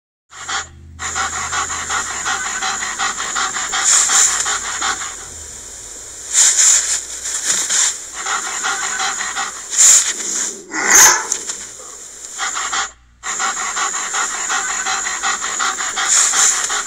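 Recorded German Shepherd sound of Google's 3D animal feature: quick, even panting, broken by a few short, louder barks.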